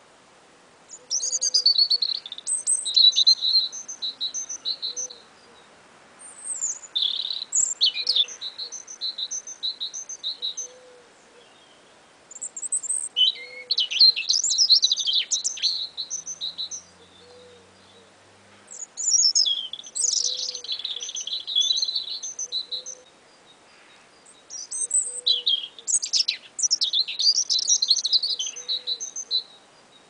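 Two small songbirds singing: bouts of high, quickly repeated notes and trills lasting a few seconds, with short pauses between. A soft low note repeats underneath about once a second.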